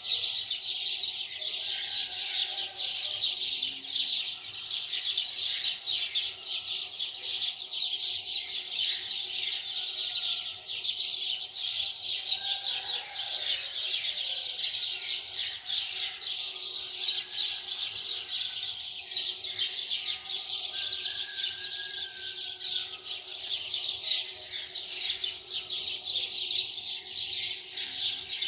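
A dense chorus of many small birds chirping continuously, the chirps packed closely together with no pause.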